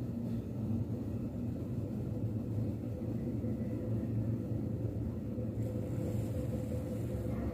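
Dog snoring in its sleep: a steady low rumble.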